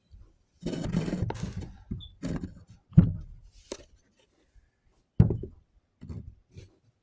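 Handling noise at close range: a rustling scrape about half a second in, then a few separate knocks and thuds, the loudest about three seconds in and another just after five seconds, with small ticks near the end. No sander is running.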